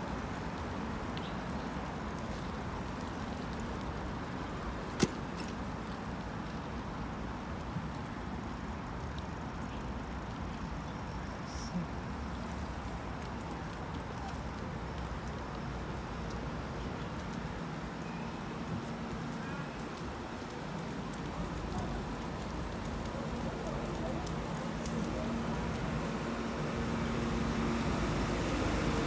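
City street noise heard from a moving bicycle: steady traffic and wind rumble, with one sharp click about five seconds in. A low hum comes in around two-thirds of the way through and grows louder near the end.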